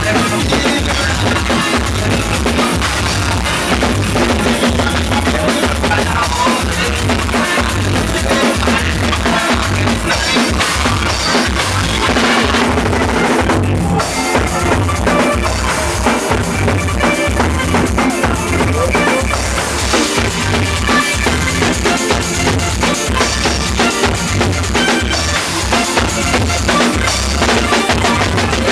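Loud soca music with a driving drum-kit beat: bass drum, snare and rimshots over a steady pulsing bass line.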